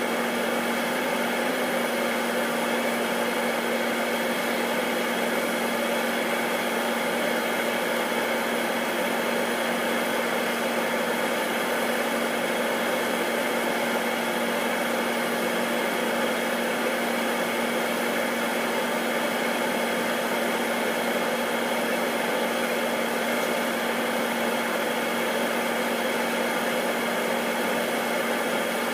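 Air Tractor agricultural plane's Pratt & Whitney PT6A turboprop idling on the ground, propeller turning slowly. It runs as an unchanging hum with a dense whooshing hiss over it.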